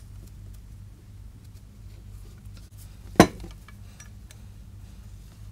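Handling of a metal motorcycle exhaust pipe while heat-wrap tape is wound on: small scattered clicks and rustles, and one sharp metallic knock about three seconds in as the pipe strikes something, over a steady low hum.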